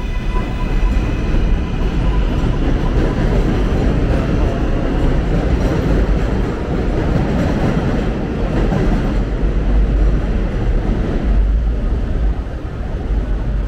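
Elevated subway train, the 7 line, passing on the steel elevated tracks: a loud, steady rumble of wheels on rails. It eases off near the end.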